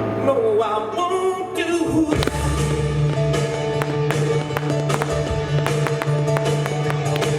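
Music: a sung line gliding in pitch during the first two seconds, then a steady instrumental backing with sharp, evenly paced hits.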